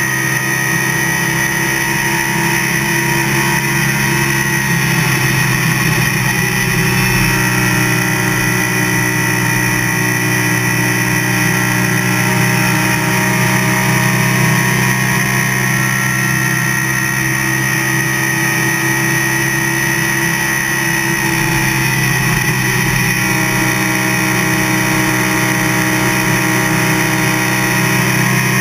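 NASCAR race car's V8 engine running hard at speed, heard from inside the cockpit as a loud, steady drone mixed with wind and road noise. Its pitch shifts only slightly as the car laps.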